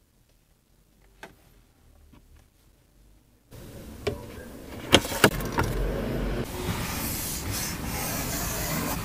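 Faint clicks of hands handling a car's interior trim. About three and a half seconds in, a steady rushing hiss and rumble starts abruptly, like wind on the microphone, and two sharp taps of a finger on the dashboard and door trim follow a second or so later.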